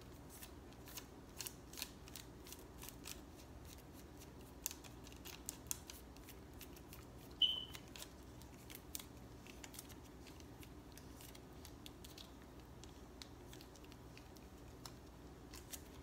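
Faint, irregular clicks and crackles of a wax strip being rubbed and pressed onto the skin, thinning out after about nine seconds. A single short, high squeak comes about seven seconds in.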